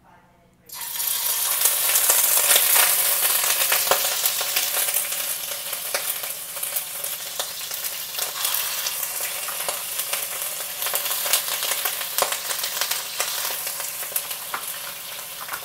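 Chicken pieces searing in hot oil in a frying pan: a loud sizzle with crackling spatters that starts suddenly about a second in and slowly eases.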